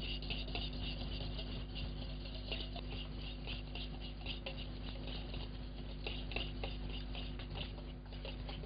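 A fork scraping and ticking rapidly against a stainless steel bowl as it fluffs up couscous soaked in warm water and butter.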